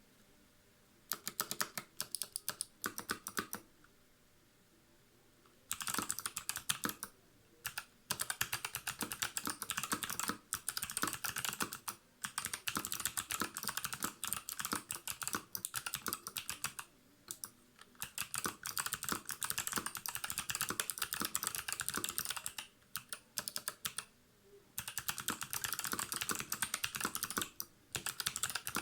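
Typing on a Varmilo VA88 mechanical keyboard fitted with clicky Kailh Box White switches: rapid runs of sharp keystroke clicks. A short burst comes about a second in, then longer fast runs from about six seconds on, broken by brief pauses.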